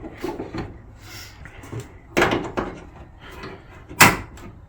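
Softer knocks, then two sharp clunks about two seconds apart, the second the loudest: a car's hood and its prop rod being handled as the hood is lowered and closed.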